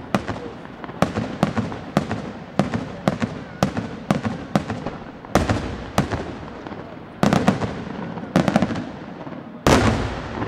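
Aerial firework shells bursting in quick succession, a sharp bang roughly every half second, each trailing off in an echo. Tighter clusters of bangs come about seven and eight and a half seconds in, and the loudest burst falls near the end.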